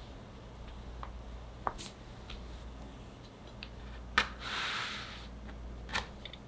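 Kitchen knife cutting down through a firm block of chocolate fudge on a plastic tray: a few light clicks as the blade meets the tray. The loudest sharp tap comes about four seconds in, followed by a brief scraping rustle, and another tap comes near the end.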